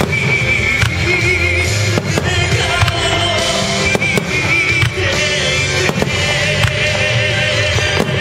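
Music with a held, wavering melody over a steady low bass, with firework shells bursting as sharp cracks about once a second throughout.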